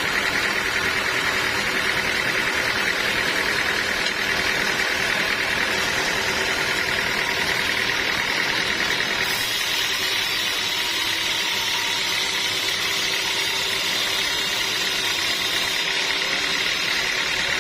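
Sawmill machinery running steadily, a continuous mechanical whir whose tone shifts about nine seconds in.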